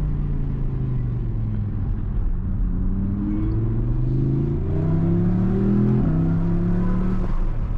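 Naturally aspirated V10 engine heard from inside the car's cabin. The note sinks for the first two seconds, then climbs steadily under acceleration, drops sharply at an upshift about six seconds in, and starts pulling again.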